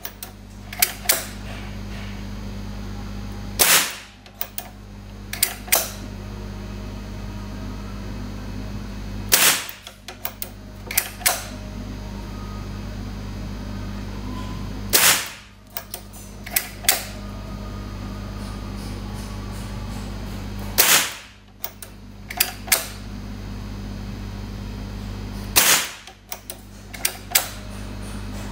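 Precharged (PCP) AP50 air pistol in 4.5 mm firing pellets: five sharp shots about five to six seconds apart. Each shot is followed within a second or so by two or three clicks as the action is cocked for the next pellet. A steady low hum runs underneath.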